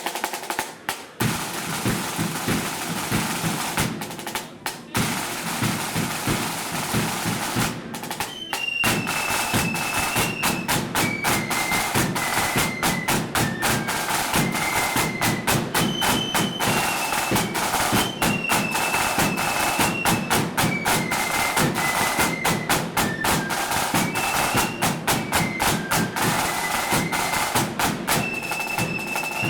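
Blood-and-thunder marching flute band. Snare drums and a bass drum play alone for about eight seconds, then the flutes come in with a marching tune over the drums.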